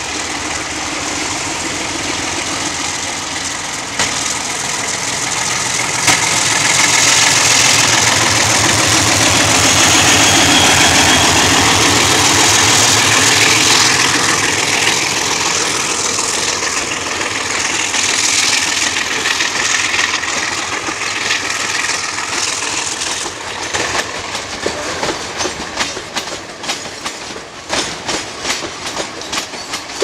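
ALCo RSD-16 diesel locomotive with its 16-cylinder ALCo 251 engine passing close by, loudest about ten seconds in. Then loaded coal wagons roll past with a regular clickety-clack of wheels over the rail joints.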